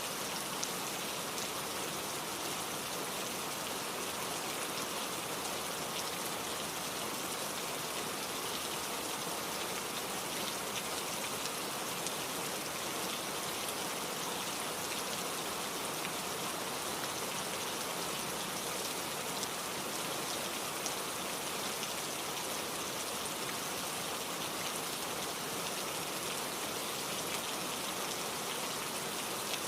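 Steady rain falling, an even hiss of drops on surfaces that keeps a constant level, with a few faint individual drop ticks now and then.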